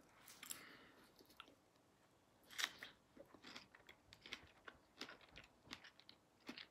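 A person chewing strawberries, faint soft wet mouth clicks and smacks, with one louder smack about two and a half seconds in.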